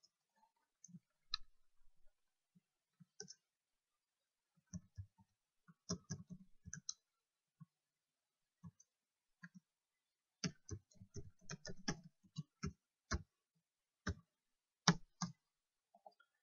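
Faint computer keyboard keystrokes: irregular clicks, scattered and then in quick runs as code is typed.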